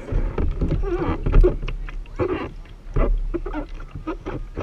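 Indistinct chatter and exclamations of several people close by in the rafted kayaks, with a steady low rumble and a few short knocks in between.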